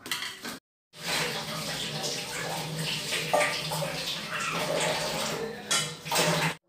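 Water running from a kitchen tap into a sink, a steady splashing hiss that starts after a brief silent gap about a second in and stops suddenly near the end.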